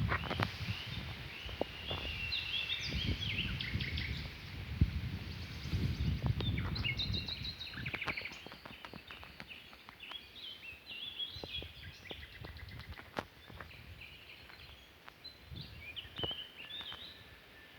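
Small birds chirping and twittering in quick high calls, many overlapping. A low rumbling noise runs beneath them through the first half and dies away about halfway through, with scattered faint clicks.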